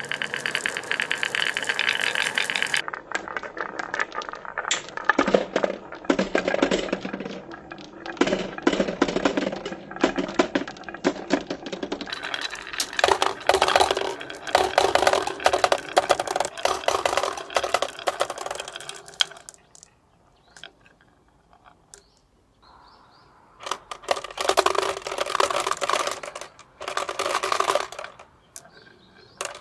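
Many glass marbles rolling and clattering down a wooden wave-shaped marble track, in dense runs of rapid clicks and rattles, and dropping into a clear plastic toy car full of marbles. The clatter stops for a few seconds about two-thirds of the way in, then comes back in a shorter burst.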